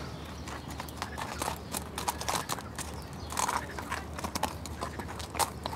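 Horses' hooves clip-clopping at a walk on a packed dirt path, several irregular hoofbeats a second.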